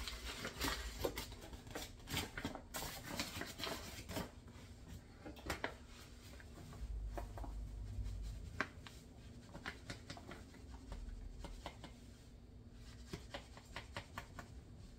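Paper flour bag rustling and crinkling as flour is poured into a measuring cup, with scattered light clicks and taps of the cup over a glass mixing bowl.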